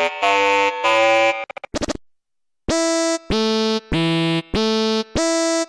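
INGO1 software synthesizer playing lead presets: a bright, pulsing synth phrase, a short run of rapid clicks and a pause about two seconds in, then a different lead patch playing a riff of about six short, separate notes.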